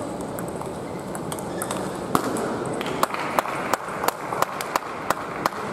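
Table tennis balls clicking sharply off bats and tables over a steady murmur of hall noise. A few scattered clicks come first, then from about halfway an even run of clicks about three a second, like a rally or warm-up.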